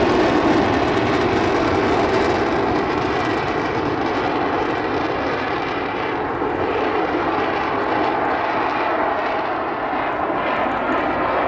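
Avro Vulcan XH558's four Rolls-Royce Olympus turbojets running as the bomber flies past, a steady rushing jet noise that eases a little as it goes by.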